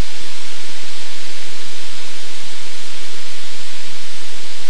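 Loud, steady hiss of static, even and unchanging, with no other sound standing out.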